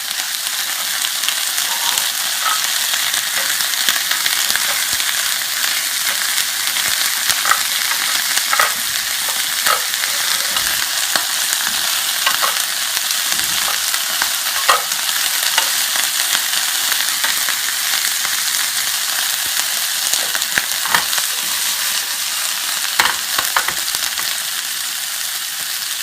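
Vegetables (frozen green beans, pea pods and bell peppers) sizzling in hot olive oil in a frying pan on high heat, a steady hiss with scattered short clicks as they are stirred.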